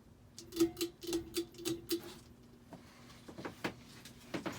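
Tatung Emperor ceiling fan speeding up to medium: a low motor hum with a buzz that pulses about four times a second for the first two seconds, and ticking clicks throughout. The fan is rusty and its bearings don't sound the best.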